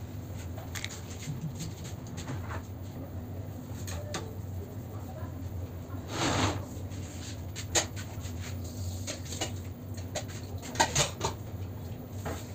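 Scattered light clicks and knocks from hands and a small modelling tool working fondant on a stone countertop, over a steady low hum. There is a short rushing noise about six seconds in and a quick cluster of sharper clicks near the end.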